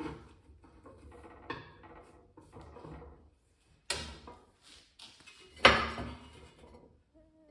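Metal parts of a homemade gas forge clanking and scraping as a fitting is tightened, with several separate knocks that ring briefly; the loudest knock comes about three-quarters of the way through.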